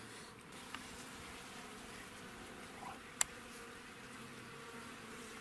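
A flying insect buzzing faintly and steadily, with one short sharp click about three seconds in.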